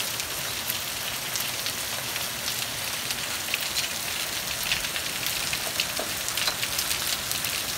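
Hail falling with rain: a steady hiss of rain with many scattered sharp clicks of hailstones striking surfaces.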